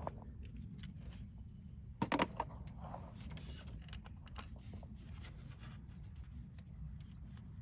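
Small metallic clicks and clinks of a Torx socket and ratchet unscrewing and handling the hold-down bolts of an ignition coil pack, with a louder clatter about two seconds in.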